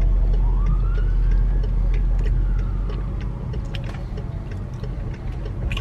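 Steady low rumble of road traffic with a police siren wailing, slowly rising and falling, as police cars go by. Scattered light clicks are heard over it.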